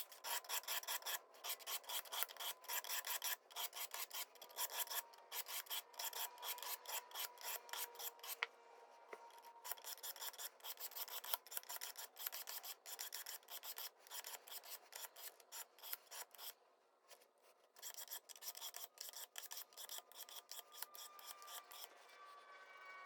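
Pocketknife blade being stroked along a sharpening stone, an even run of rasping strokes at about two to three a second with a faint ring from the steel. The strokes pause briefly about two-thirds through, then start again.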